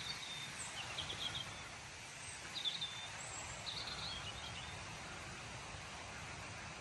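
Small birds chirping in short groups of quick, high notes, three or four times, over a steady background hiss.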